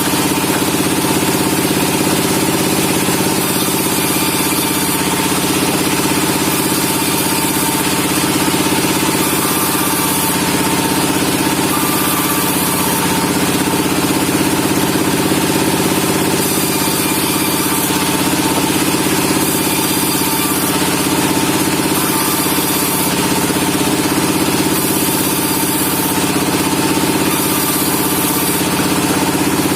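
Sawmill machinery running steadily: an engine-driven log saw with a constant low hum and a higher whine that shifts briefly in pitch now and then.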